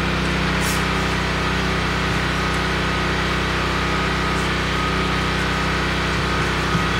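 Portable generator engine running steadily under load while it powers the house, with the HVAC just switched on.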